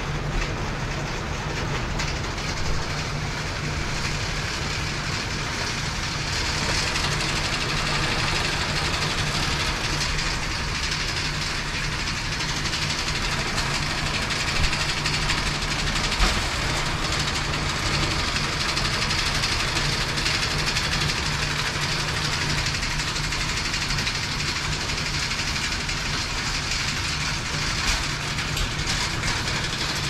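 Hay mow bale conveyor running, its chain rattling steadily along the steel track as it carries small square hay bales, under a constant hum. Two sharp knocks come about halfway through.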